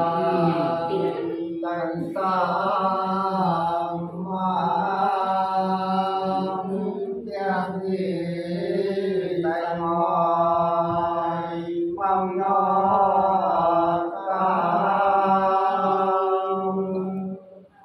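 A group of men singing soọng cô, the Sán Dìu folk song, unaccompanied, in long held phrases broken by short pauses for breath every two to three seconds. The singing stops near the end.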